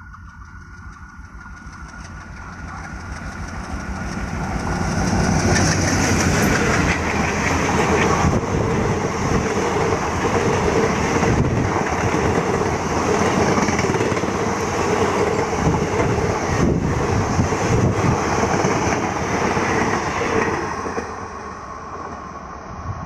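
ALCO diesel locomotive hauling a passenger express past at speed: the sound grows over the first five seconds as the locomotive approaches, then the coaches' wheels clatter on the rails in a long, steady run, easing off as the last coach goes by near the end.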